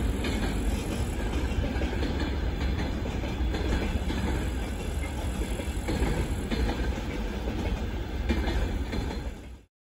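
Freight train rolling past: a steady heavy rumble of wagons with wheels clattering over rail joints, cutting off abruptly near the end.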